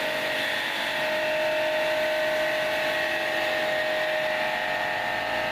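Small electric high-pressure jet cleaner (700 W) running under load and spraying, a steady motor-pump whine over the hiss of the water jet.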